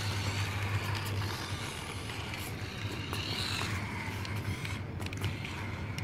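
Toy remote-control car's small electric motor whirring as it drives on concrete, its pitch rising and falling with speed, over a steady low hum.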